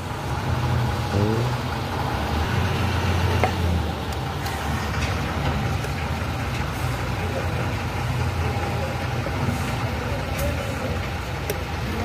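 A steady low engine rumble, like a vehicle idling, with a few faint sharp clicks over it.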